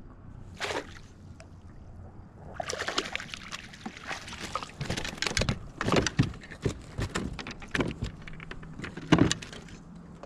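Water splashing and dripping as a crappie is netted and lifted from the water in a landing net, then a quick run of knocks and rattles as the net and fish are set down on the kayak.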